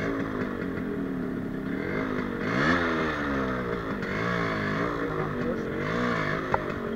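Yamaha RXZ's two-stroke single-cylinder engine, revved up and falling back several times in quick succession, with a single sharp click near the end.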